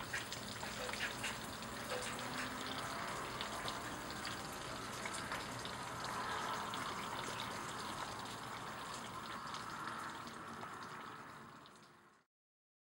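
Summer monsoon rain falling steadily, with scattered sharp drop ticks; it fades out near the end.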